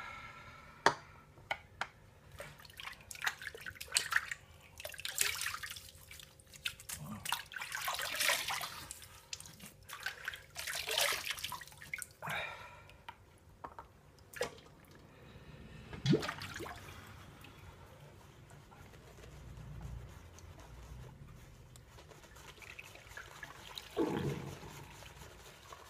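Water splashing and dripping as wet hands are worked over the face, with scattered small clicks, then wet rubbing as lather is spread on the cheeks by hand near the end.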